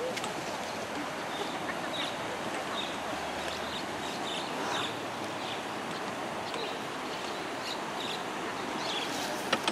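Steady rushing of a swollen, fast-flowing river, with a bird chirping high and short about twice a second over it. Two sharp clicks just before the end.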